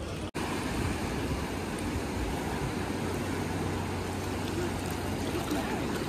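Steady rush of the Ganges flowing and lapping at a sandy shallow bank, with some wind on the microphone, after a brief cut-out about a third of a second in.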